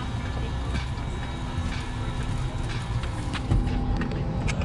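Airliner cabin at the gate during boarding: a steady low rumble with a faint hum, and scattered light clicks and knocks about once a second.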